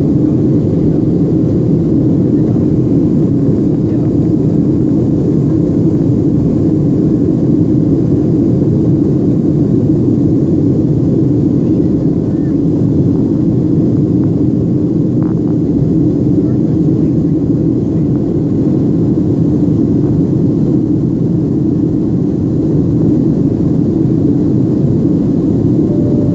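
Steady low drone of engine and airflow noise inside the cabin of a Boeing 737 climbing out after takeoff.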